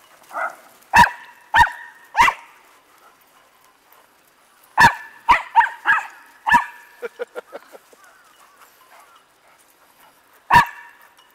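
A dog barking in sharp single barks: three about half a second apart early on, a quick run of five a few seconds later, then one more near the end, with a few softer, shorter yaps in between.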